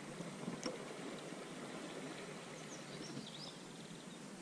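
Quiet riverside background: an even hiss like flowing water, with a light click about half a second in and a few faint high chirps in the middle.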